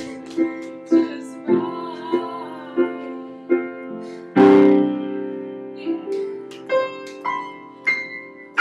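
Piano played in steady chords, a new chord struck roughly every half second, with a louder, fuller chord about halfway through.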